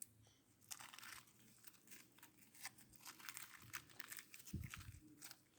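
Faint, crisp crackling and popping clicks from a stiff homemade glue-and-borax slime being worked by hand, with a soft thud about four and a half seconds in. The crackle is the slime's crunchy texture.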